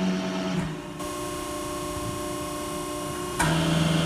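Cincinnati 90CBX6 hydraulic CNC press brake running through cycles: a loud low hum from the ram stroke eases about a second in, the machine hums steadily, and a second loud stroke starts just before the end.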